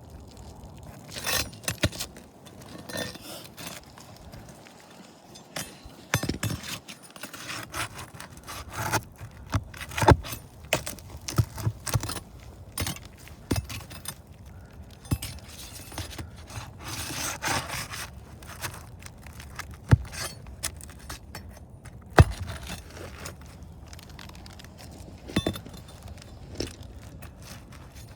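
Roof shingles being pried up and worked loose: repeated scraping and crackling with metal clinks and scattered sharp knocks, the loudest knock about 22 seconds in.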